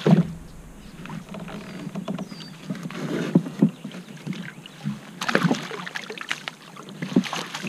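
A hooked fish splashing at the surface beside a kayak as it is netted, with scattered knocks and rattles of tackle against the hull. The loudest bursts come about five seconds in and again near the end.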